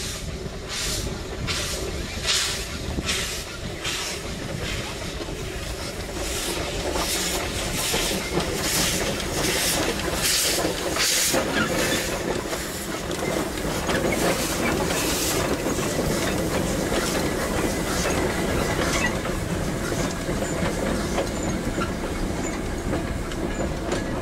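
Two narrow-gauge steam tank locomotives double-heading a passenger train. They work past with loud, regular exhaust beats, about one and a half a second, and steam hissing at the cylinders. After about two-thirds of the way through, the beats fade and the coaches and wagons rattle and clatter by on the rails.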